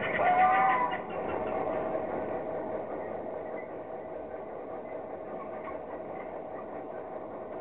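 A steady mechanical hum, with a short pitched, gliding call in the first second.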